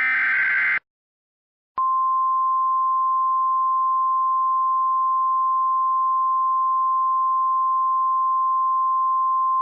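Emergency Alert System signal: the last burst of the harsh, buzzing SAME data header, then after about a second of silence a steady single-pitch alert tone starts and holds, marking a warning about to be read.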